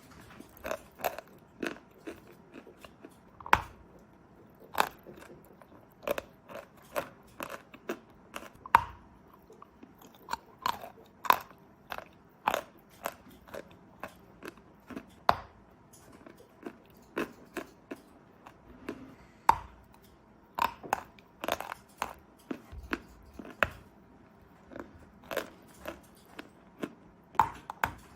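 Dry 'Belaya Gora' (White Mountain) chalk being bitten and chewed: a long run of sharp, dry crunches, about one or two a second, with short pauses between them.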